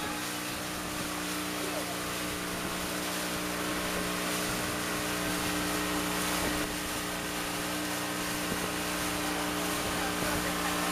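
Small passenger boat's motor running at a steady, unchanging pitch under way, over a hiss of wind and water.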